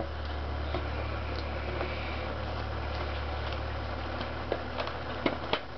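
A steady low hum, with a few light clicks of small rifle parts being handled near the end; the hum stops shortly before the end.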